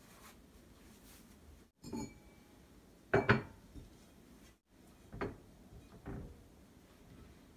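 Kitchen dishware being handled on a counter: a handful of short clinks and knocks as bowls and dishes are picked up and set down. The loudest are two knocks a little after three seconds in.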